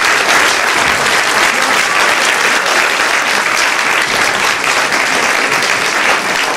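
A theatre audience applauding, steady dense clapping throughout.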